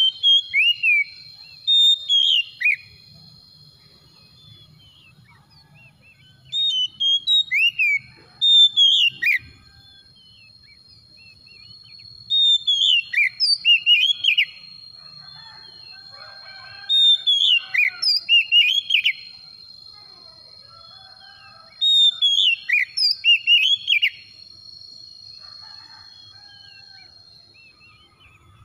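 Oriental magpie-robin (kacer) singing: loud bursts of clear, fast whistled notes that sweep downward, about six phrases with pauses of a few seconds between them. A faint, steady, thin high tone runs beneath.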